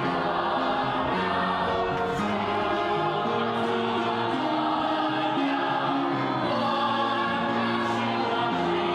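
A chorus of many voices singing together, holding long notes that step from pitch to pitch.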